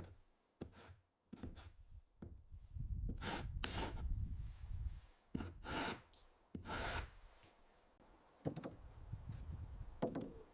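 Hand tools working timber: a series of irregularly spaced wooden knocks, some with a short ring, with rubbing and scraping in between.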